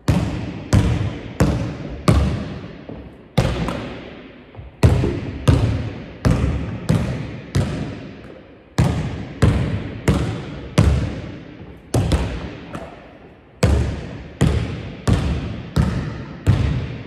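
A basketball bounced again and again on a wooden gym floor while being dribbled, a little under two bounces a second, each bounce echoing in the large hall.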